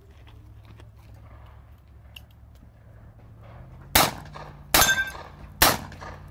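Three handgun shots just under a second apart near the end, each with a short metallic ring from the steel target plates being hit.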